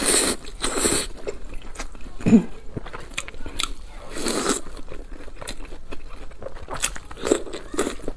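Close-miked eating sounds: a mouthful of spicy noodles and rice sucked in off a spoon, then wet chewing with many small clicks and smacks. Louder slurping bursts come again about four seconds in and near the end.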